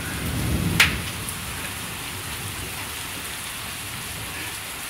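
Torrential rain pouring down steadily on a flooded street, with the low rumble of a thunderclap dying away over the first second. A single sharp tap about a second in.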